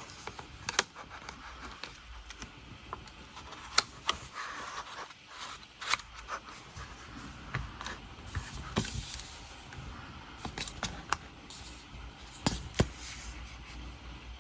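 Hands handling CD packaging: scattered light clicks and taps with soft rustling of card and plastic.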